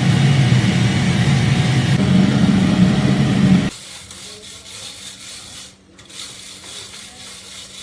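A motor-driven workshop machine running with a steady low hum and a rasping, rubbing noise, which cuts off suddenly a little under four seconds in, leaving quieter background noise.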